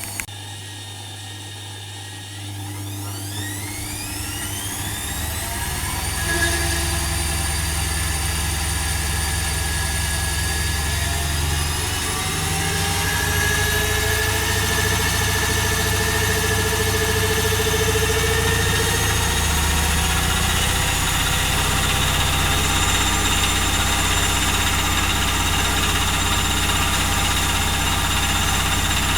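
Privileg Dynamic 4612 washing machine's motor speeding the drum up into a spin: a click, then a whine that rises in pitch over a few seconds and settles into a steady high whine over the drum's rumble.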